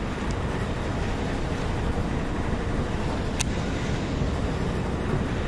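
Steady low rumbling noise of wind buffeting the microphone, with one sharp click about three and a half seconds in.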